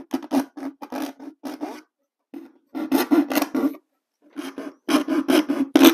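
Keyhole saw cutting through 1/8-inch masonite hardboard, with quick back-and-forth rasping strokes about four or five a second. The strokes come in three runs with two short pauses between them.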